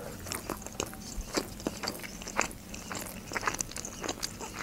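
Close-up chewing of a mouthful of sushi roll, with short, irregular mouth clicks and smacks about three a second.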